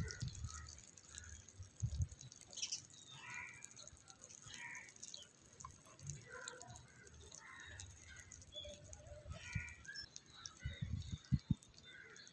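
Faint, scattered light taps and scrapes of a small spoon against miniature clay pots as food is scooped and served, with a few sharper knocks near the end.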